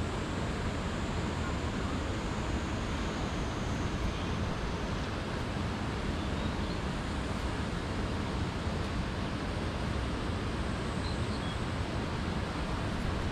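Steady rushing of a mountain stream: an even wash of water noise with no distinct events.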